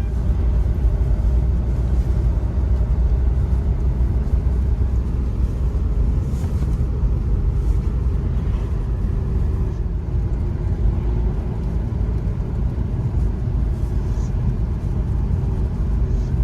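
Renault Mégane II diesel car on the move: a steady low rumble of engine and road noise.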